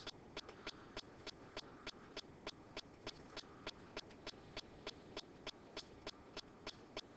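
Faint, even ticking: short clicks at a steady rate of about three a second over a low hiss.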